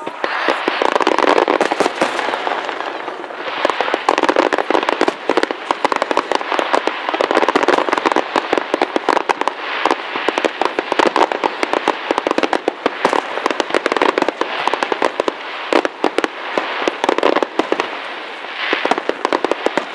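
Fireworks display: a dense, continuous barrage of bursting shells and crackle, with many overlapping bangs every second and no pause.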